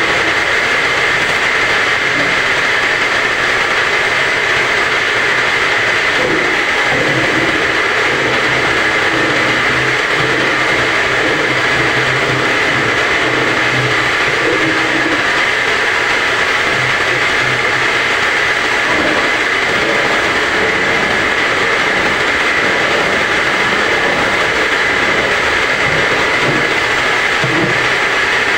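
A home-assembled semi-automatic round gallon bottle washing machine running, a loud, steady, unbroken mechanical noise.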